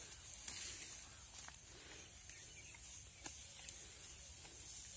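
Faint rustling of dry wheat stalks being cut by hand with a sickle, with a few light snaps.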